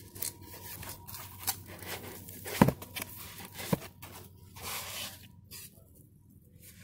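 Fishfinder's cardboard box and packing being opened and handled by hand, with scattered rustles and clicks and two sharp knocks, the loudest about two and a half seconds in.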